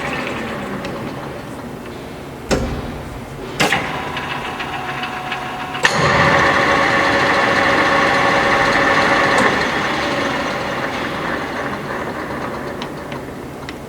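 LeBlond Regal engine lathe running under power, its headstock gearing giving a steady whine. There are sharp clunks about two and a half and three and a half seconds in. About six seconds in, with a sharp click, the whine jumps louder, holds for a few seconds, then slowly dies away.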